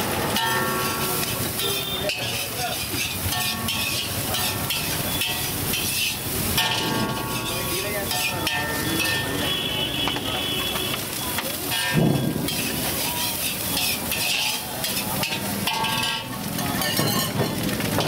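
Chicken fried rice sizzling in a large iron wok over a gas burner, with a metal ladle scraping and clanking against the pan as it is stir-fried; a loud knock about twelve seconds in.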